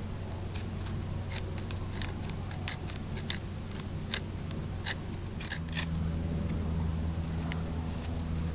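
A scattering of sharp, crisp clicks and snaps at irregular intervals over a steady low hum. The hum gets a little stronger about halfway through.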